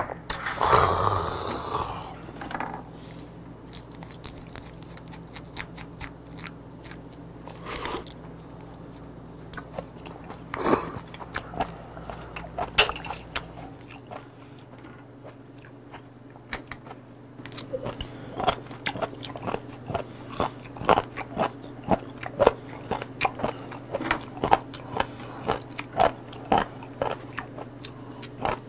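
Close-miked chewing of raw shellfish, many small wet clicks and crunches, growing quicker and denser in the second half. It opens with a sharp knock as a glass is set down on the wooden table, followed by a brief noisy breath.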